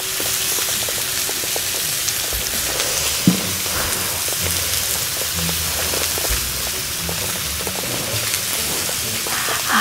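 Pork belly and kimchi sizzling on a cauldron-lid griddle (sotttukkeong): a steady frying hiss with scattered small pops.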